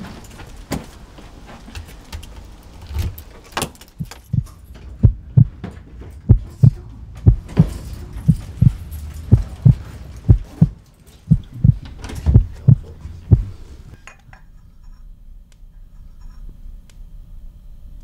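Heartbeat sound effect: low thuds in lub-dub pairs, about one pair a second, stopping suddenly a little after halfway. A few light clicks and rattles come before it.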